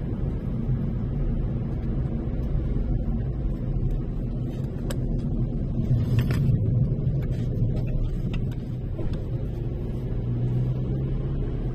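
Car running on the road, heard from inside the cabin as a steady low rumble of engine and road noise.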